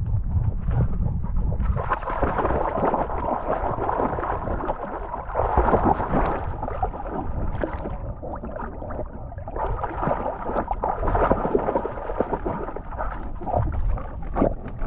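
Cocker spaniel swimming in a river: water splashing and gurgling around it, picked up by a camera strapped to its back close to the water surface.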